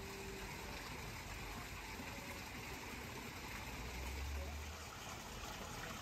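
Steady rush of falling water from Nachi Falls, with a brief low rumble about four seconds in.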